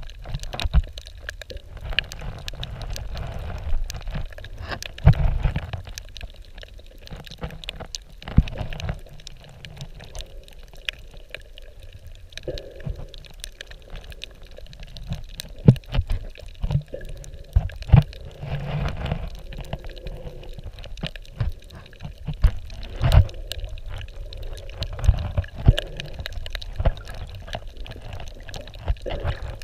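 Water heard from underwater through the camera: a muffled sloshing rumble with many sharp, irregular clicks and knocks.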